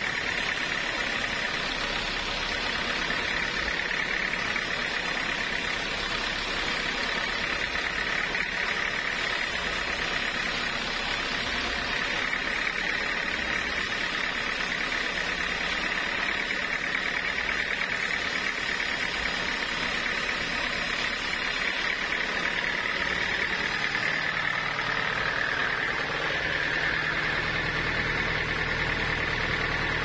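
Band sawmill blade cutting lengthwise through a large block of teak, a steady machine whine with a strong high hiss. Near the end the sound shifts and a low hum joins in.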